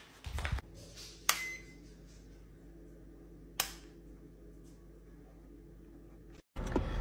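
Rocker switch on a switched wall socket flipped twice: two sharp clicks a couple of seconds apart, the first followed by a brief faint high beep, over a faint steady hum.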